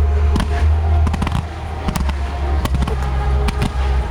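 Aerial fireworks bursting in quick succession: many sharp cracks, several a second, over a continuous deep rumble of booms.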